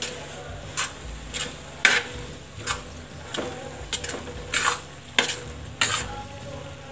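Metal spatula stirring and scraping thick pav bhaji on a hot tawa: a run of quick scrapes and knocks, about two a second, over a faint sizzle.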